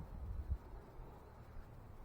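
Wind buffeting the microphone: a low, uneven rumble in gusts, strongest near the start and about half a second in.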